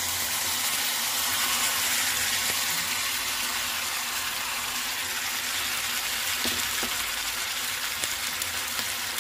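Hot oil with cumin seeds and green chillies sizzling in a kadai as sliced raw potatoes are tipped in from a bowl: a steady frying hiss, with a few faint clicks.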